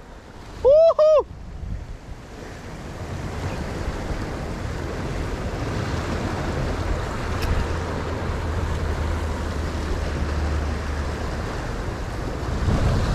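Surf washing against a rocky shoreline, with wind on the microphone. About a second in, two loud, short arching tones sound back to back.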